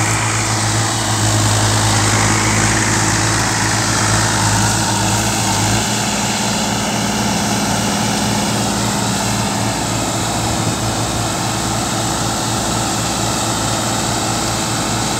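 New Holland tractor's diesel engine running steadily under load while driving a rotavator that is tilling the field, with the engine drone over a dense churning noise. The engine note changes about six seconds in.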